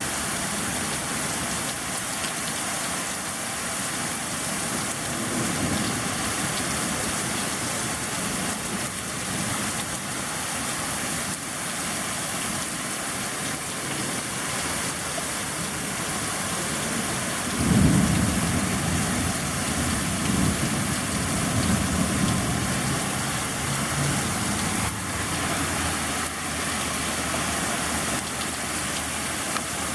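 Heavy rain pouring steadily during a thunderstorm, with a long roll of thunder breaking in a little past halfway and rumbling on for several seconds.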